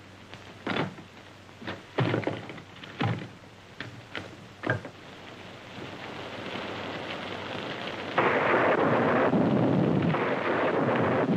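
Storm rain and wind, fairly low at first with a handful of sharp knocks, then swelling and jumping suddenly to loud about eight seconds in as the cabin door is opened to the storm.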